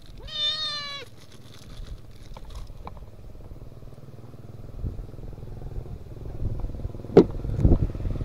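A kitten gives one high, drawn-out meow, then only faint handling sounds follow; near the end comes a sharp knock and rustling.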